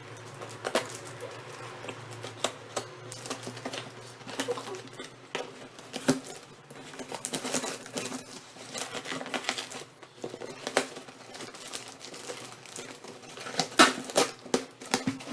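Cardboard shipping box being opened and its contents handled: an irregular string of sharp taps, clicks and rustles of cardboard and packing.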